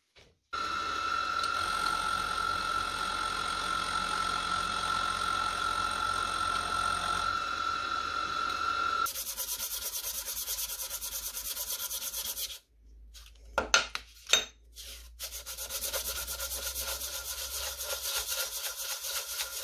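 A small steel part rubbed back and forth by hand on sandpaper laid flat on a metal plate, lapping it down a few hundredths of a millimetre to a fit. A steady machine whine fills roughly the first nine seconds, and a few sharp knocks come in a short pause about two thirds of the way through.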